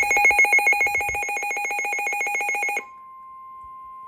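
Weather-radio emergency alert tones: a harsh, rapidly pulsing electronic buzz cuts off abruptly about three seconds in. It gives way to a steady single-pitched tone, the 1050 Hz NOAA Weather Radio warning alarm tone that announces a new warning.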